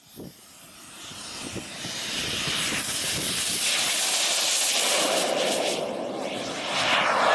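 Behotec 220 model gas turbine in a radio-controlled Carf Lightning jet running at high power on its takeoff roll: a loud rushing jet sound with a thin high whine. It swells over the first couple of seconds, eases slightly about six seconds in, then rises again near the end.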